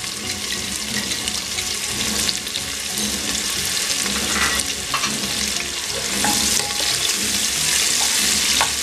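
Sliced onions sizzling in hot oil in a pressure cooker, stirred with a wooden spoon, a steady frying hiss.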